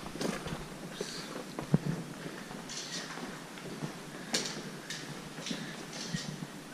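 Footsteps and scattered light taps as a few people walk in across a concrete floor.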